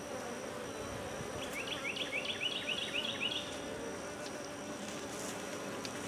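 Honey bees buzzing steadily over the open frames of a Langstroth hive. A quick run of high, rising chirps sounds over the hum between about one and a half and three and a half seconds in.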